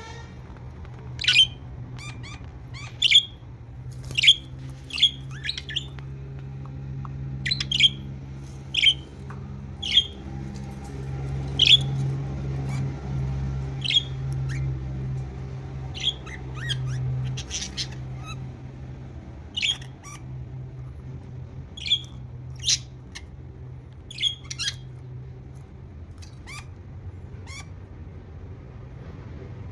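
Budgerigars giving short, sharp squawking chirps, about one a second, thinning out near the end, over a steady low hum.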